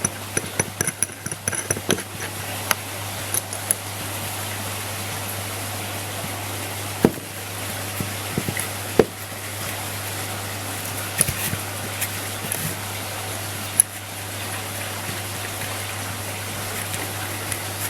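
Small metal clicks and taps from the parts of a Cult Match BMX hub being handled and fitted, with a quick run of light ticks in the first couple of seconds, then single sharp clicks a few seconds apart. Under them is a steady hiss with a low hum.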